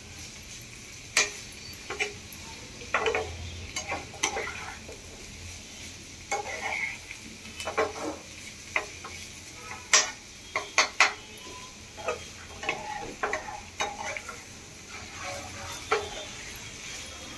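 Metal spoon stirring and scraping diced raw banana in a nonstick frying pan, with irregular clinks and scrapes against the pan over a steady sizzle of frying oil.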